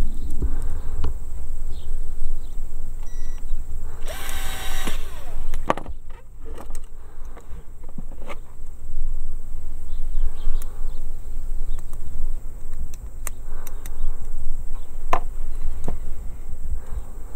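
Cordless drill with a Phillips bit whining for about a second as it drives a screw through the band's attaching plate into the hoof wall, about four seconds in. A few sharp clicks follow over a steady low rumble.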